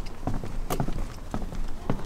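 Footsteps on the planks of a wooden dock, a steady walking pace of about two steps a second.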